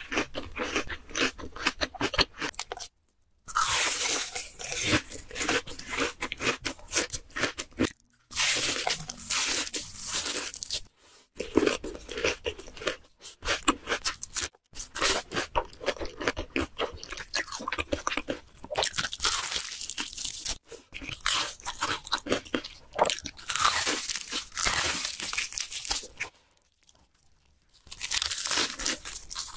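Close-miked crunching and chewing of crispy deep-fried battered shrimp and fish, the batter crackling in dense runs with each bite and chew. There are brief pauses between mouthfuls and a longer pause near the end.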